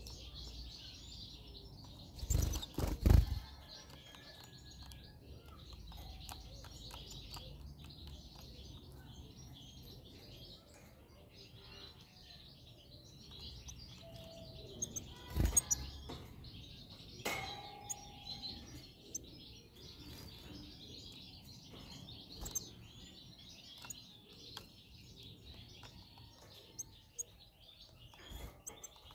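Small songbirds chirping and twittering continuously, with a cluster of loud thumps a couple of seconds in and a few more single knocks later.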